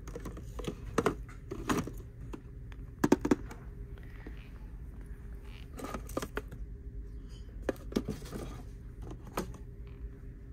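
Round paperboard gift boxes and a packaged greeting card being handled on a store shelf: irregular light taps and knocks as they are picked up, moved and set down, the loudest a quick pair about three seconds in. A steady low hum runs underneath.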